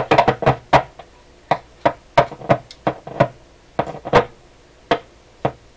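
Vintage DeForest Crosley shortwave tube radio's speaker popping and crackling, more than a dozen sharp pops at uneven intervals: electrical noise in the set with the bias battery's position shorted out.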